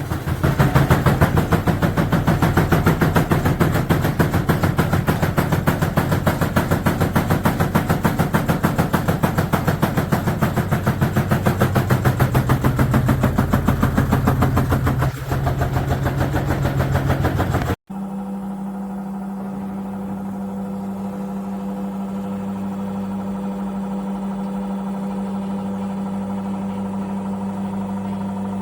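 Cecotec Bolero Dresscode 7410 front-load washing machine running noisily, shaking and rattling with a fast, even knocking as it moves. About two-thirds of the way through, the sound cuts off abruptly and is replaced by a quieter, steady machine hum.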